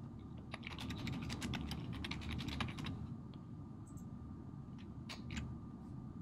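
Typing on a computer keyboard: a quick run of keystrokes from about half a second in to about three seconds, then a few more key clicks near the end.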